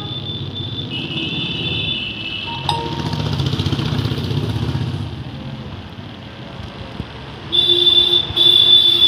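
Street traffic: a vehicle engine rumbling past, with steady high-pitched horn tones and two loud horn blasts near the end.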